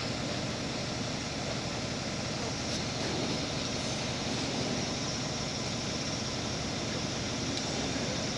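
An engine running steadily at idle, an even unbroken drone.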